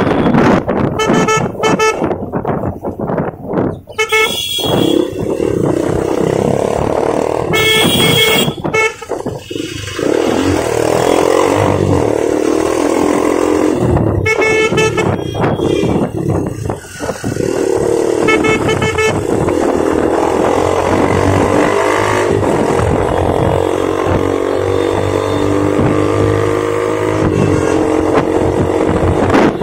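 Motorcycle engine and road noise riding through city traffic, with vehicle horns honking in short blasts about five times.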